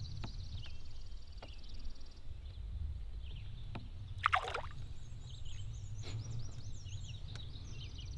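Outdoor lake ambience: a steady low rumble of wind on the microphone, a high buzz that stops about two seconds in, one short sharp falling sound about four seconds in, and faint high chirps after it.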